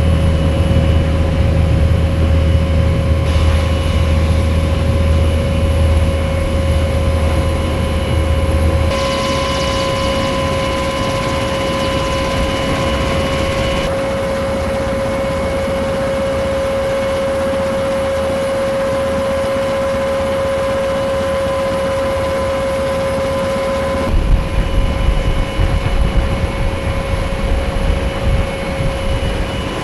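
Military turboshaft rotorcraft running, a steady high turbine whine over heavy rumbling engine and rotor noise. The sound changes abruptly several times, heaviest low rumble in the first nine seconds and again near the end.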